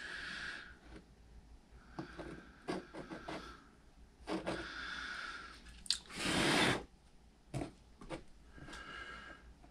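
Hot tip of a plastic welder pressing and working into melting plastic and wire screen mesh on an RC car body: crackling, crunching scrapes with short clicks. There is a louder hiss lasting about half a second, roughly six seconds in.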